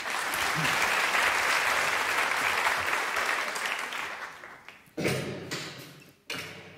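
Audience applauding, dying away after about four seconds; a sudden loud noise follows about five seconds in, and another shortly before the end.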